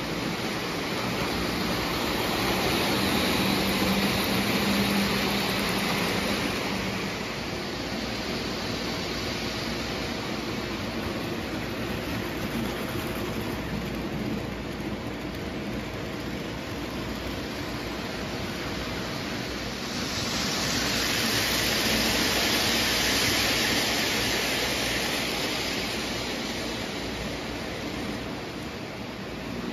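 O gauge Lionel model train (electric locomotive pulling passenger cars) running on three-rail tubular track: a steady rumble of wheels and motor, with a low hum for the first several seconds. The sound swells louder twice, a few seconds in and again about two-thirds of the way through.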